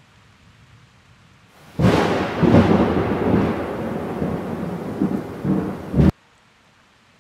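A loud thunderclap over a rain-like hiss, rumbling and crackling in several swells. It breaks in sharply about two seconds in and cuts off abruptly about six seconds in.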